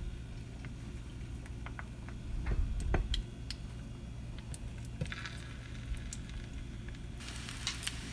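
Egg-coated chicken shami kababs shallow-frying in oil in a frying pan: scattered crackles, with a steadier sizzle coming in about five seconds in and filling out near the end. A dull thump two to three seconds in is the loudest sound.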